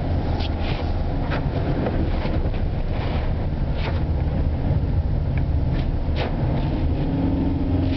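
Vehicle driving on a wet track, heard from inside the cabin: a steady low engine and tyre rumble, with a few short splashes of water against the windscreen.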